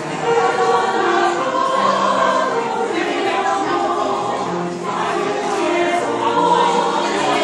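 A women's choir singing a sacred piece in parts, with long held notes, pausing briefly between phrases about five seconds in.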